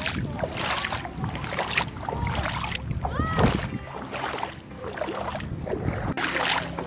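Bare feet wading through shallow seawater, splashing with each step, about one splash a second.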